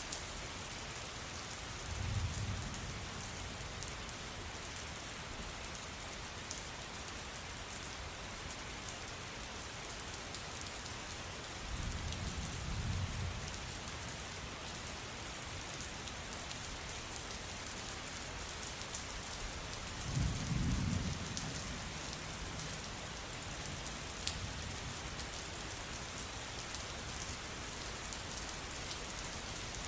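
Steady rain with scattered drops ticking, under three low rumbles of thunder, each a second or two long: about 2 s in, around 12 s and around 20 s, the last the loudest.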